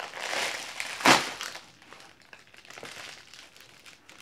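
A plastic bubble mailer being torn open by hand: crinkling as the plastic is pulled, a sudden loud tear about a second in, then lighter crinkling and rustling of the plastic.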